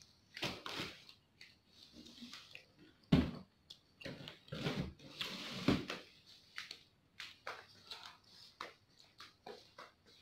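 A person slurping instant noodles off a fork and chewing, in an irregular string of short wet slurps and mouth smacks, the loudest slurp about three seconds in.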